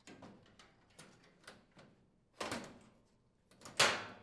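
Stainless steel control panel of a gas range being fitted back onto its front brackets: light metal clicks and taps, then two louder clunks, one about halfway through and the loudest near the end.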